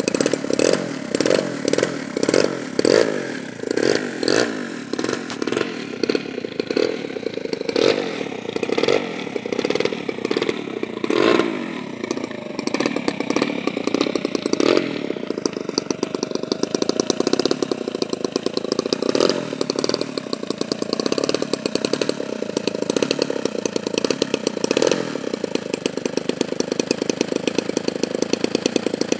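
DLE 35cc single-cylinder two-stroke petrol engine of a large RC Corsair model running on the ground as the model taxis. The throttle is blipped up and down in short surges about once a second at first, then held at a steadier speed for the rest.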